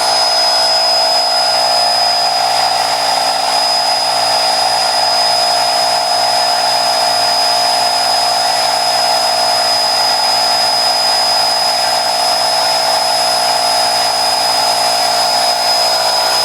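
Husky 8-gallon portable air compressor running steadily, its small electric motor and pump filling the tank. It makes an even hum with a steady high-pitched whine over it.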